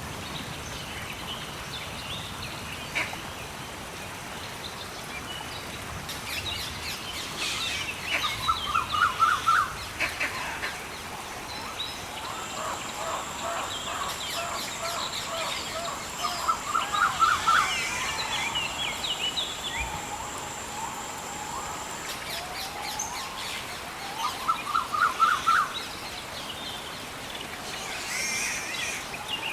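Rainforest ambience with several birds calling over a steady background hiss. A quick run of rapid notes comes back three times, about every eight seconds, and a thin, steady high-pitched whine sounds for about ten seconds midway.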